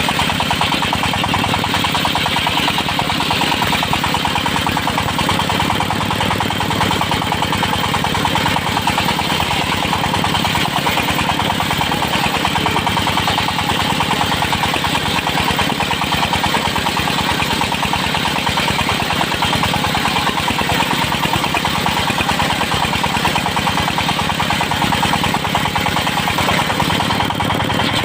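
Engine of a circular-saw sawmill running steadily at an even speed, with no pauses.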